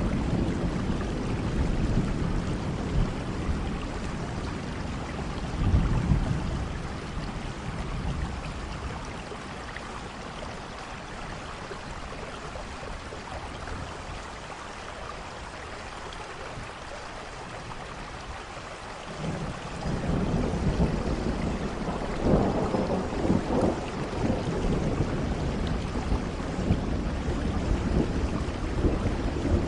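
Steady rain with rolling thunder: a low rumble at the start dies away after a few seconds, leaving the rain alone, then a louder roll of thunder builds about twenty seconds in.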